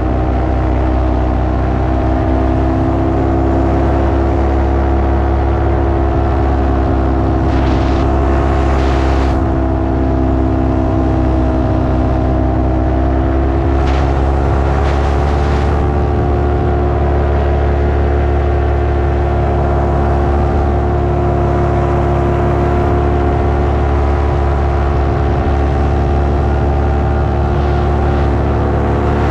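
Paramotor engine and propeller running steadily in flight, a continuous drone whose pitch dips slightly about ten seconds in and comes back up a few seconds later as the throttle changes. Brief rushes of wind noise come through twice.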